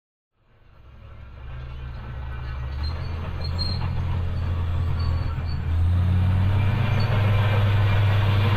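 Deep, steady engine rumble that fades in from silence, grows louder and steps up in level about two-thirds of the way through.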